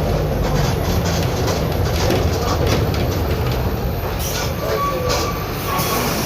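Mercedes-Benz OF-1721 BlueTec 5 bus's diesel engine running steadily under way, through a holed exhaust, with thin squealing tones over it in the second half.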